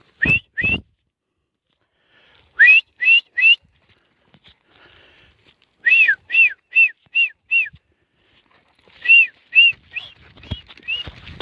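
A person whistling short, rising-and-falling notes in quick runs of two, three, six and five, the kind of whistle used to call dogs in.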